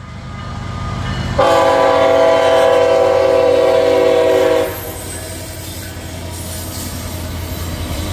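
CSX freight locomotive's multi-chime air horn sounds one long blast, starting about a second and a half in and lasting about three seconds. Under it is the steady rumble of the passing freight train: diesel engines and wheels on the rails, growing louder near the end.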